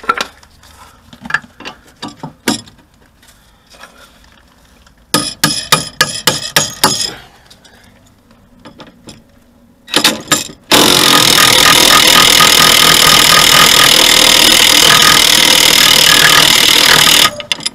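Impact wrench hammering on the nut of a front anti-roll bar drop link: scattered clicks and a quick run of clacks first, then a short burst and a long run of about six seconds that stops suddenly. The nut won't come undone because the worn drop link's ball-joint stud is spinning with it.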